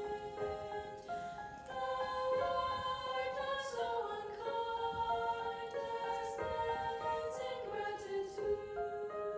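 Slow, gentle singing of held notes in several parts at once, the voices moving together from note to note, with the hiss of sung consonants now and then.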